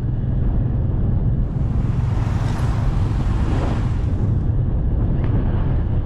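Wind rushing over the microphone of a moving motorcycle, a steady low rumble throughout, swelling into a louder, hissier rush for about three seconds in the middle.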